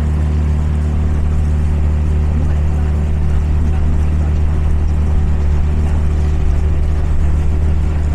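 Parsun 20 hp four-stroke outboard motor running steadily under way, a constant low hum with the rush of water along the inflatable boat's hull.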